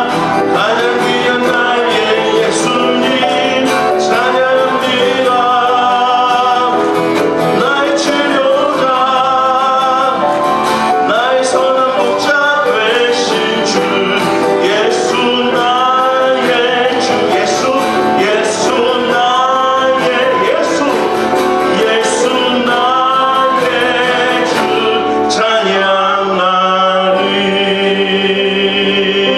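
A man singing a Korean praise song while strumming an acoustic guitar. Near the end the strumming stops and a long held note remains.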